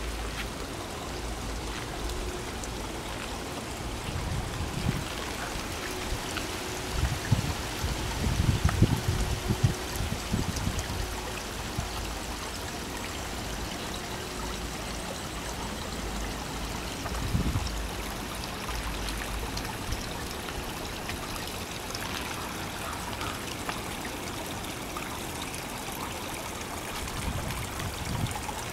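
Steady trickling and splashing of a garden pond's rock waterfall spilling into the pond. Irregular low rumbles on the microphone come and go, mostly a few seconds in and once more briefly midway.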